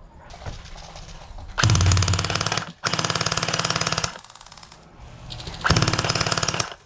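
Electric full-auto gel blasters firing three long bursts, a rapid steady rattle of shots over the whine of the gearbox motor.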